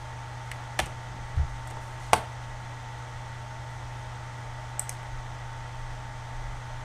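Computer mouse and keyboard clicks: a sharp click just under a second in and another at about two seconds, with a dull bump between them and a faint double click near five seconds. A steady low hum runs under them.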